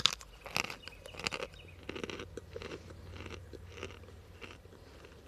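A bite snapping into a hard, dry chunk of cornstarch, then crunchy chewing, a crunch about every half second to second, growing fainter near the end.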